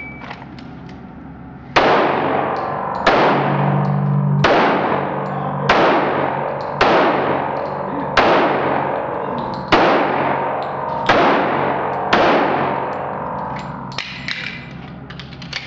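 Nine pistol shots fired one at a time, a little over a second apart, each echoing for about a second off the walls of an indoor range. A few light clicks follow near the end.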